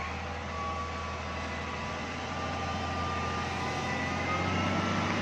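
Wheel loader's diesel engine running steadily as the loader pushes snow with its bucket, with a thin whine over it that creeps up in pitch; the sound grows slightly louder toward the end.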